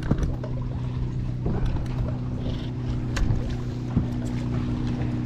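Bass boat's motor running steadily at low speed, a low even hum, with a few light knocks and clicks.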